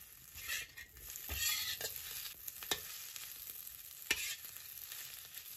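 Metal spatula stirring and scraping fried sweet potato sticks around a wok, over a light sizzle of the salted egg yolk sauce, with several sharp clicks as the spatula knocks against the wok.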